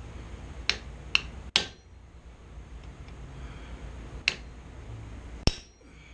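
Hammer striking a hand-held hot chisel on a glowing steel bar on an anvil, five sharp blows: three in quick succession, then two more spaced out, as the blacksmith cuts into the hot bar to split it for fork tines.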